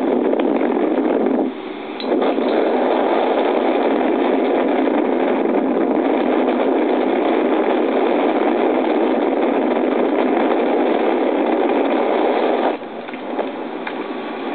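Wind rushing steadily over the microphone of a camcorder carried up on a parasail; the rushing drops briefly about one and a half seconds in and again near the end.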